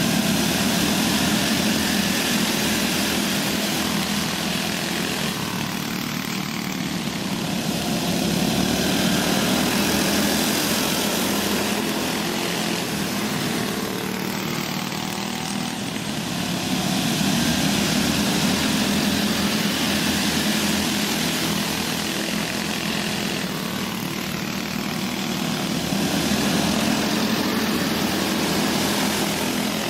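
Several small go-kart engines racing on a dirt oval, a continuous buzz that swells and fades about every eight seconds as the karts come past and go away.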